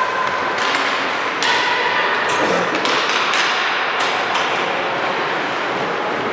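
Ice hockey game play in an arena: several sharp clacks of sticks and puck over a steady wash of rink noise.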